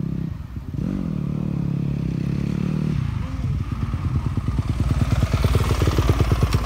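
Motocross bike engine revving up and down, then running with a steady rapid pulse that grows louder toward the end.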